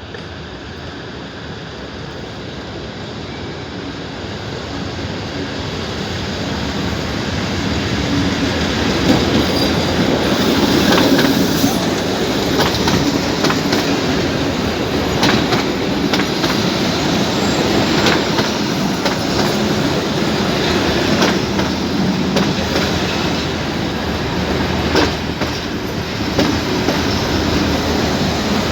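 Abu Qir line commuter train running on the rails. Its rumble grows louder over the first ten seconds and then holds steady, with sharp wheel clacks over rail joints every few seconds.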